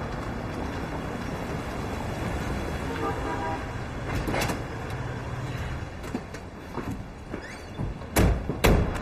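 Steady vehicle rumble that thins out about six seconds in, followed by scattered knocks and two loud thumps near the end.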